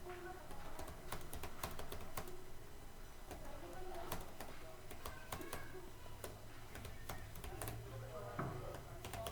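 Typing on a computer keyboard: a continuous run of uneven key clicks, several a second.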